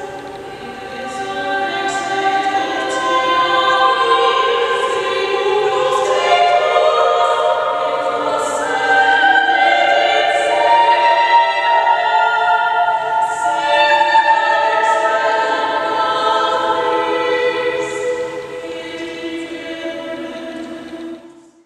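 Three sopranos singing unaccompanied in close three-part harmony, long sustained lines in a reverberant church. The sound dies away near the end as a phrase closes.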